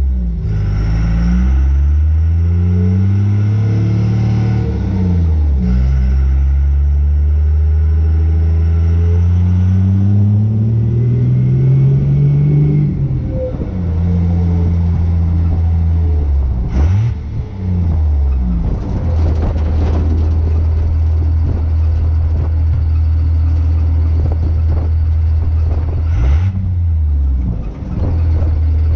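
A Cummins 24-valve inline-six turbo diesel, swapped into an old Ford pickup, is running out through twin straight exhaust stacks while the truck drives. The engine note climbs steadily in pitch under acceleration and drops suddenly about thirteen seconds in. It then holds a steady cruising drone, with brief dips and recoveries in pitch about seventeen seconds in and again near the end.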